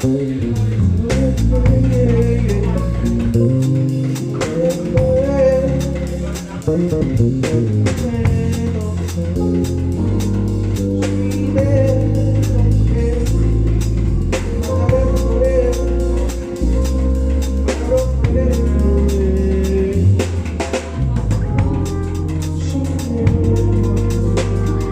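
A live band playing: a drum kit keeping a steady beat under a prominent bass line, with guitar or keyboard chords.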